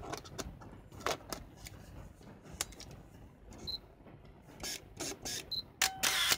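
Canon EOS-1 film SLR being worked through its functions: small clicks of its buttons and controls, a few short whirs and two short high beeps, then near the end the shutter firing and the built-in motor winding the film on, the loudest sound.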